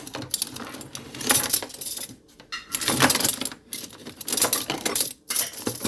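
Metal utensils and dishes clinking and clattering in a run of small knocks, as spoons and kitchenware are handled and set down.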